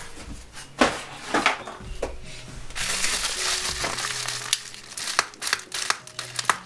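Plastic bubble-wrap mailer crinkling as it is pressed flat and slit open with a small cutter. There are a few sharp crackles in the first two seconds, then dense, continuous crinkling from about three seconds in.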